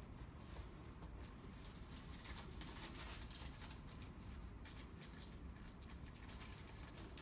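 Faint, irregular rustling and crinkling of thin paper sheets being handled and pulled apart, the sheets sticking together.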